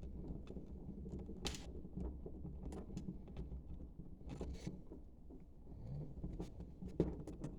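Small clicks and rustles of cables and connectors being handled and pushed into place, over a steady low hum, with a sharper click near the end.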